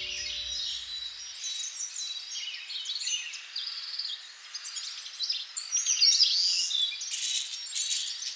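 Several wild birds chirping and singing at once, many short overlapping calls, trills and quick whistled glides.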